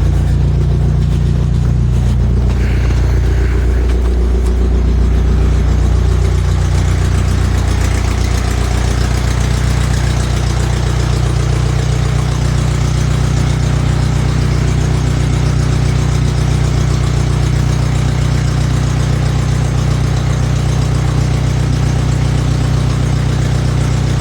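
Farmall MD four-cylinder engine running steadily at idle after a cold start. Its low rumble is heavier for the first eight seconds or so, then it settles to an even idle.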